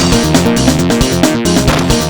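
An LG F2100 mobile phone ringtone playing: an electronic, synthesized melody with layered notes over a steady, quick beat.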